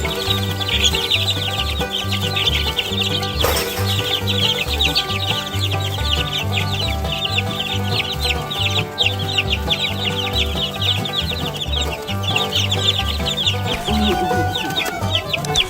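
A brood of two-week-old Barred Rock chicks peeping loudly and without pause, many rapid high chirps overlapping, excited by a piece of cooked egg held over them. Background music with a steady bass line plays underneath.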